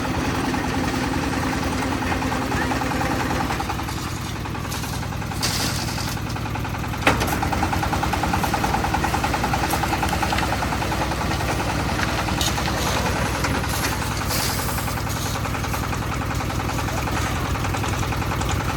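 Concrete mixer's engine running steadily, with a single sharp knock about seven seconds in.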